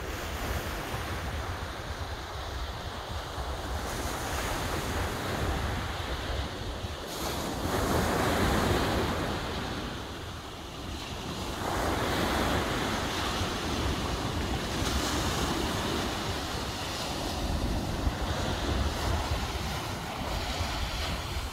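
Ocean surf washing onto a sandy beach, swelling louder about a third of the way in and again just past halfway, with wind buffeting the microphone.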